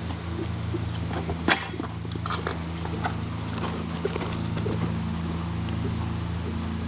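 A horse cantering on a dirt arena, its hoofbeats thudding, with one sharp, loud knock about a second and a half in as it reaches a small pole jump. A steady low hum runs underneath.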